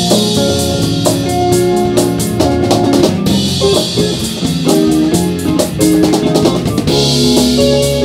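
Live band playing with drum kit, electric guitar and bass guitar: a steady drum beat under sustained guitar notes.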